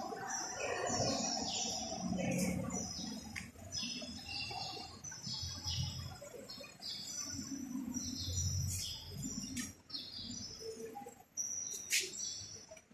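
Small birds chirping over and over in many short, high chirps, with a few low thumps and a sharp click near the end.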